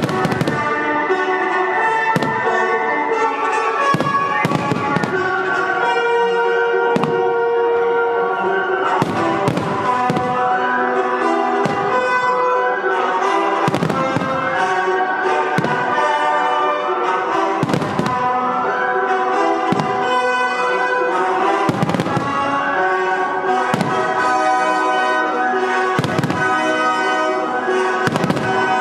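Aerial firework shells bursting in a steady barrage, with a sharp bang roughly every second or two, over continuous instrumental music.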